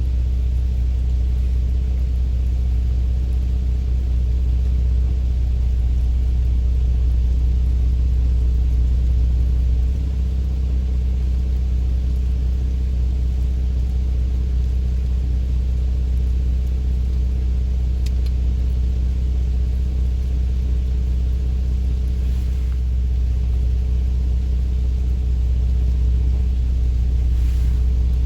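Steady engine and road rumble of a Dodge Grand Caravan heard from inside the cabin while driving, with a slight shift in tone about ten seconds in.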